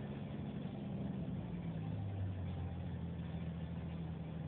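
A car engine running with a low, steady hum that drops in pitch about a second in.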